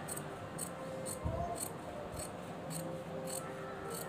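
Large fabric scissors cutting through stiff canvas paper (tailoring interlining) along a drawn curve: a steady run of short, crisp snips, about two a second.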